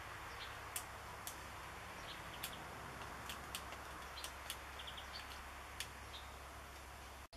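Red squirrel gnawing a walnut shell: sharp, irregular clicks of teeth on shell, about eight in all, over a steady hiss, with faint short bird chirps now and then.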